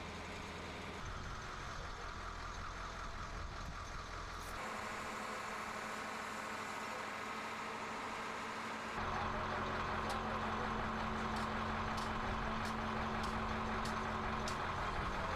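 Steady hum of a running vehicle engine, with a low drone that changes abruptly a few times and some light ticks in the second half.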